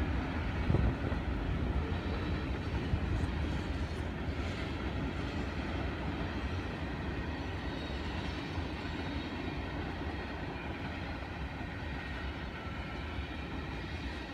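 Freight cars of a passing CSX mixed freight train rolling by on steel wheels and rails: a steady rumble that slowly grows a little quieter.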